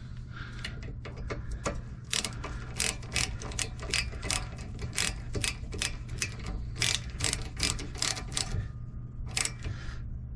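Ratchet wrench being worked during a brake repair: a run of sharp clicks, about two to three a second, over a steady low hum.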